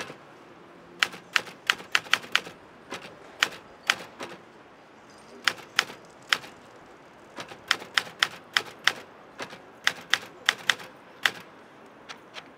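Manual typewriter being typed on: sharp key strikes in quick, irregular runs, broken by short pauses.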